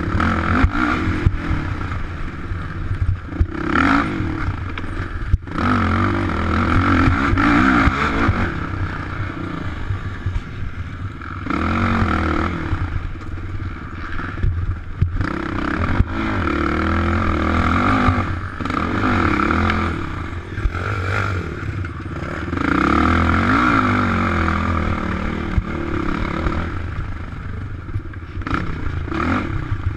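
Sport ATV engine working hard, its note rising and falling again and again as the throttle is opened and closed through the trail's turns, with clatter and knocks from the machine over rough ground.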